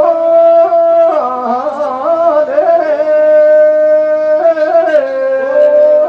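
Rajasthani Teja gayan folk music: a single high melodic line held in long steady notes, with ornamented, wavering turns and glides between them.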